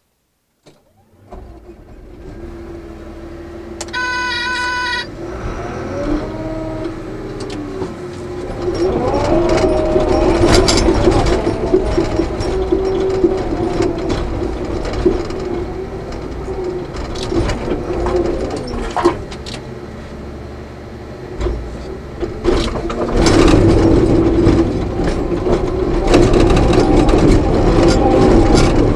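Cat D6K crawler dozer's diesel engine heard from inside the cab: it comes up about a second in, a single electronic beep sounds for about a second, then the engine works on, its pitch rising and falling, with sharp clanks. It eases off for a moment and runs louder again for the last several seconds.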